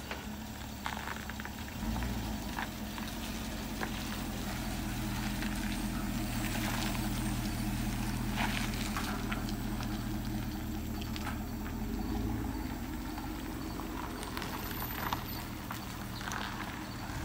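GMC Yukon Denali's V8 running at low speed as it tows a boat on a tandem-axle trailer, its low steady note strengthening about two seconds in as it pulls away. Scattered light clicks and rattles come from the trailer hitch and tyres rolling over grass and pavement.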